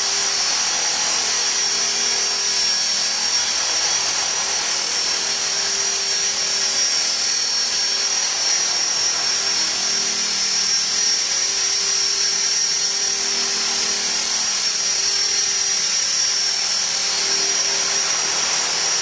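E-Sky Belt CP electric RC helicopter in flight: a steady high-pitched whine from its motor and gearing, with a lower tone that comes and goes as it manoeuvres.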